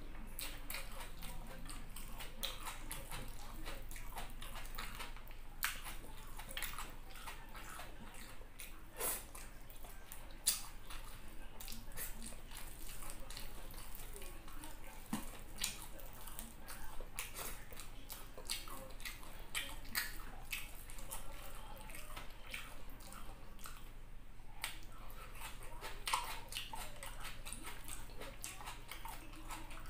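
Close-up eating sounds of fried tilapia and fried rice being chewed: wet smacks and sharp crunchy clicks, several a second, over a low steady hum.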